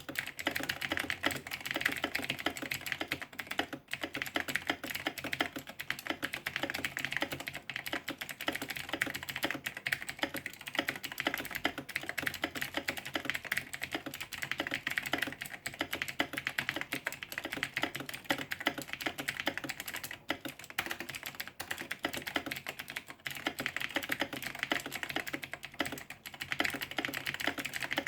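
Computer keyboard typed on rapidly and continuously, at about 103 words per minute: a dense stream of key clicks with a few short breaks.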